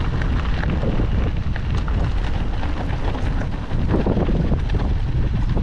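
Wind buffeting the action-camera microphone during a mountain-bike descent of a rocky track, with the crunch and rattle of tyres over loose stones. It dips briefly a little past halfway, then picks up again.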